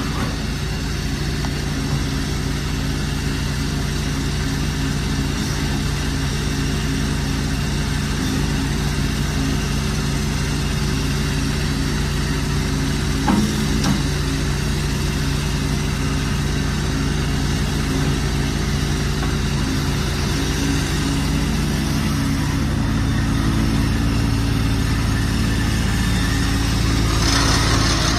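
Kubota diesel engine of a Toro TX1000 compact track loader running steadily, its note shifting about two-thirds of the way through. A single knock about halfway, and a short burst of hiss near the end.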